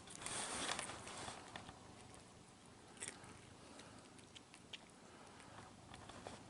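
Cat chewing crispy bacon: faint, scattered crunching clicks.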